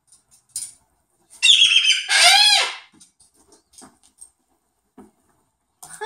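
Moluccan cockatoo giving two loud calls about a second and a half in, the second rising and falling in pitch, with light taps around them and another call starting at the very end.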